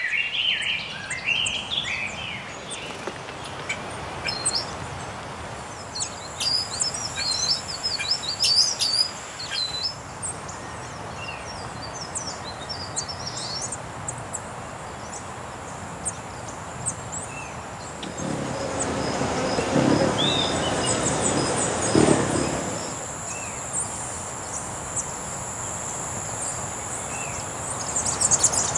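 Forest ambience: many birds chirping and whistling, busiest in the first third, over a steady high-pitched hum that sets in about six seconds in. A louder rushing noise swells and fades a little past the middle.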